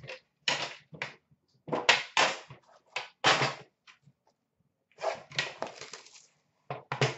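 Trading cards and their metal tin and plastic holders being handled on a counter: a series of short rustles and scrapes, with a longer stretch of rustling about five seconds in.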